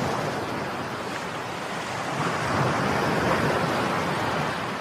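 Ocean surf breaking in a steady rush of noise that swells a little about two seconds in.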